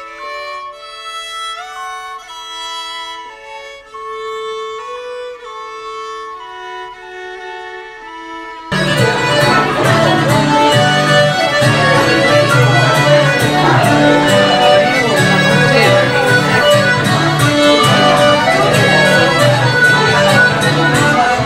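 Fiddle music playing slow, clean held notes. About nine seconds in, it cuts sharply to a louder live traditional Irish session in a crowded pub: fiddles and guitar playing with a steady strummed beat over the room's chatter.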